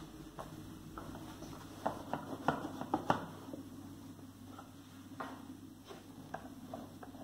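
Wooden parts of a laser-cut plywood puzzle mechanism handled by hand: scattered clicks and taps of wood on wood, with a cluster of sharper clicks about two to three seconds in and a few softer ones later.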